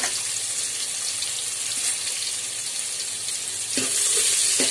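Chopped onion sizzling in hot oil in a large aluminium pot, a steady hiss. Near the end a metal ladle stirs it, with a few scraping strokes against the pot.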